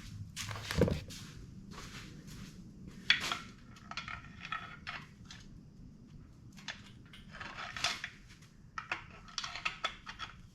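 Small metal engine parts and tools being handled: scattered light clinks and clicks, with a duller knock about a second in and a sharp clink about three seconds in.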